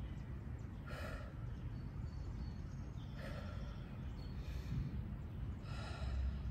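A woman's forceful exhalations, one with each arm push: three breathy out-breaths about every two and a half seconds.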